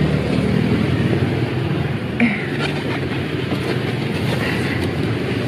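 Steady rumble of street traffic, mixed with clothing rubbing on the phone's microphone as it is jostled while people get into a car.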